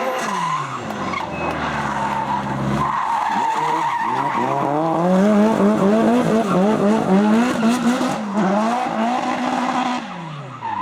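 Nissan SR20DET turbocharged four-cylinder in a Lada 2105 drift car, revving hard with the revs bouncing quickly up and down while the tyres skid and squeal. The revs fall away near the end.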